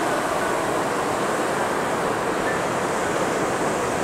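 Steady rush of sea water and small waves in shallow water, an even wash with no single splash standing out.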